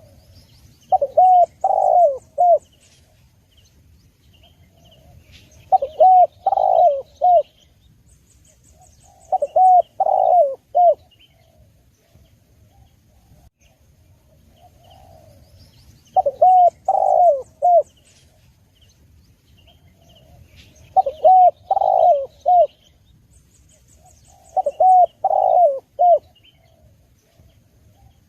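Spotted dove (tekukur) cooing: six phrases of three or four notes each, repeated every four to five seconds. Faint high chirps and trills sound between them.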